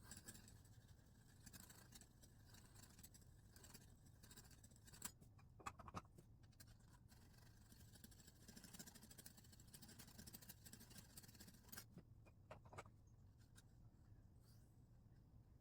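Faint scraping of a Lansky 4,000-grit ceramic hone drawn along a knife edge in a guided-rod sharpener, with a few light clicks; the strokes stop about twelve seconds in.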